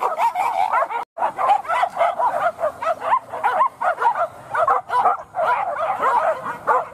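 A pack of hunting dogs held on leads, yelping and whining all together in a dense chorus of short, high, bending calls that overlap without pause. The sound breaks off for an instant about a second in.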